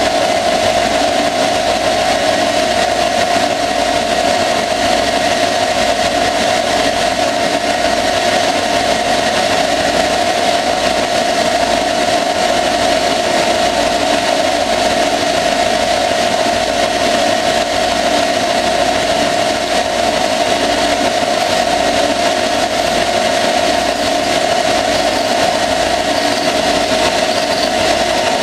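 Small metal lathe running steadily while turning a steel axle under flood coolant: a constant high hum over an even hiss of cutting and coolant spray.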